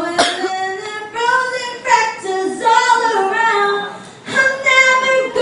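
A woman singing, holding drawn-out notes that rise and fall in pitch, with short breaks between phrases.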